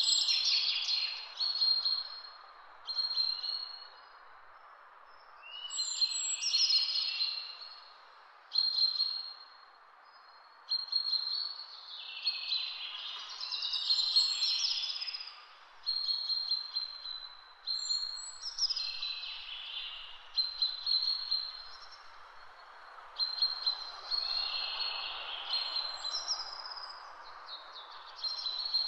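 Birds chirping and singing in repeated short, high-pitched phrases, over a steady soft rushing background noise.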